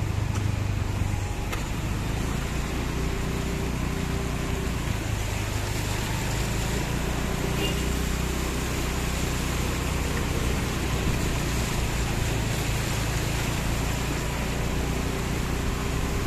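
A motor vehicle driving through a flooded street: a steady engine hum, with water swishing and splashing under the tyres.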